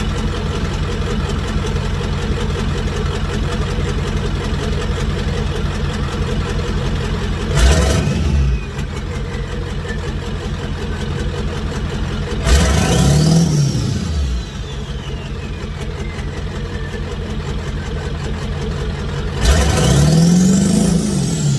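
Ford 7.3 L Powerstroke V8 turbo diesel with a 4-inch straight-pipe exhaust, idling and revved three times, each rev longer than the last. With each rev the turbo's high whistle climbs, then falls away slowly as the turbo spools down.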